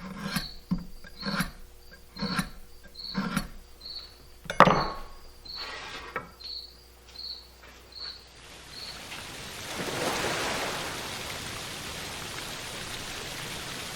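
A series of wooden knocks, the loudest about four and a half seconds in, as trim boards are handled and laid out, over an insect chirping about twice a second. From about nine seconds in, the chirping gives way to a steady rushing noise.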